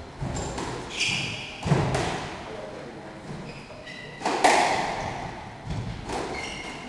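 Squash rally: a string of sharp hits a second or two apart as the ball is struck by the rackets and smacks off the court walls, each hit ringing briefly in the court, with short high squeaks in between.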